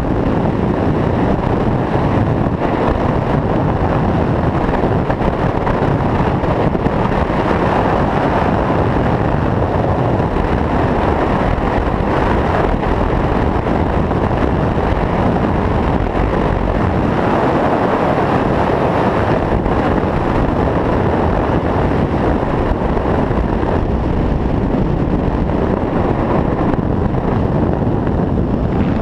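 Steady rushing wind on the microphone of a camera mounted outside a moving vehicle, over the vehicle's road and driving noise.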